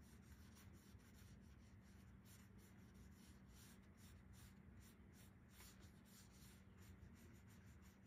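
Faint, irregular swishes of a paintbrush drawn lightly across watercolor paper, over a low room hum.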